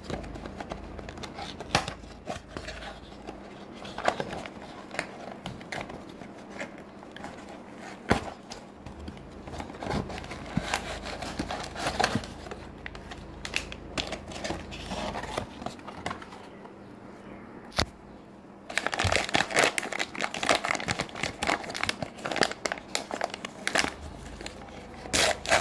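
Toy packaging being handled and opened: crinkling and tearing with scattered small clicks, getting louder and denser about three quarters of the way through.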